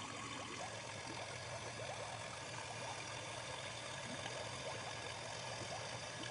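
Electrolux PerfectCare 600 front-loading washing machine mid-wash: water sloshing and gurgling in the drum over a steady low hum.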